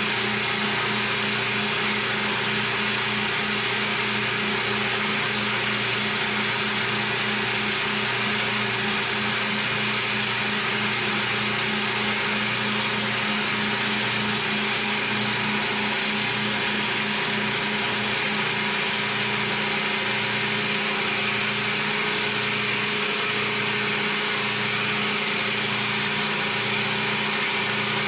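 CNC milling machine cutting a part: steady spindle and cutting noise with a fast regular pulsing, and a slower low pulse joining in after about 18 seconds.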